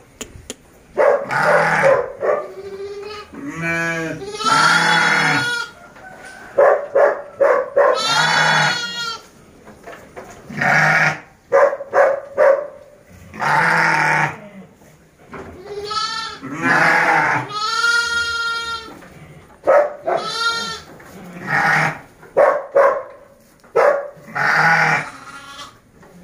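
A flock of sheep bleating, many calls following one another every second or two, some long and quavering, others short.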